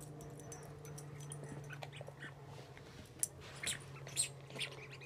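Small dog chewing and biting a yellow plush toy, giving a few short, sharp sounds from about three seconds in, over a faint steady low hum.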